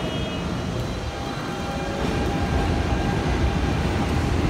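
New York City subway N train pulling into the station: a steady rumble of wheels on rail that grows louder about halfway through, with a faint whine over it.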